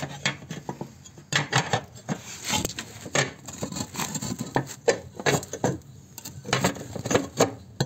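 Irregular metallic clinks, knocks and scrapes of things being handled at a small wood-burning stove made from an old gas cylinder, as it is set up for lighting.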